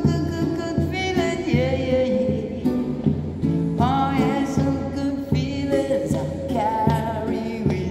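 A man singing with wavering held notes while strumming chords on an acoustic guitar.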